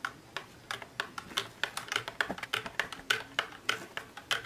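Metal spoon clinking against the inside of a glass tumbler while stirring wood apple pulp into water, quick uneven clinks several times a second.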